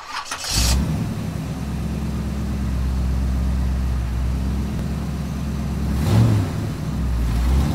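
Car engine sound effect running low and steady, with a short rush of noise near the start and a brief rev about six seconds in.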